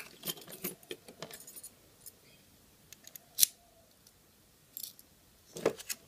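Small metal padlock parts clinking and clicking as they are handled and picked out of a tray: a quick run of light clicks at first, one sharp click a little past halfway, and a short cluster of clicks near the end.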